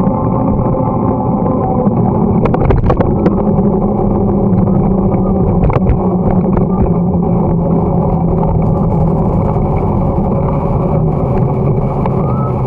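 Wind buffeting the microphone of a camera on a moving bicycle, mixed with road and tyre noise, with a steady low hum throughout. A few sharp clicks and rattles come about two and a half seconds in.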